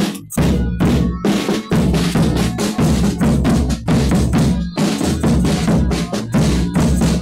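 Folia de Reis drums playing a fast, steady beat of about three strokes a second. The loudest is a large bass drum struck with a padded mallet, with lighter drum strokes among them.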